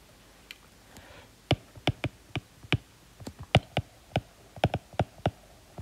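Stylus tapping and clicking on a tablet screen during handwriting: a run of irregular sharp clicks, several a second.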